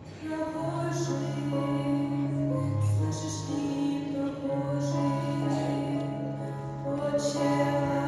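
Slow vocal music: singing voices holding long sustained notes over a low held bass note, with a few soft hissing consonants.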